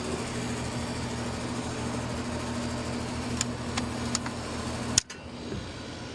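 Air-conditioner condenser unit running with a steady electrical hum, with a few light clicks of handling. About five seconds in a sharp clack as the power is cut, and the hum stops while the motor winds down.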